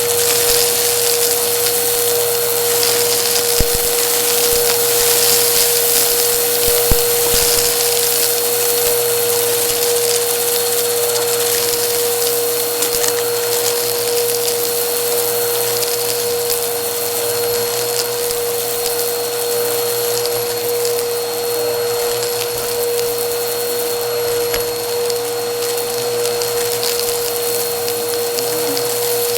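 Vacuum cleaner running steadily with a high, even motor whine while it picks debris off a rug, with scattered sharp clicks of grit being sucked up, most of them in the first several seconds.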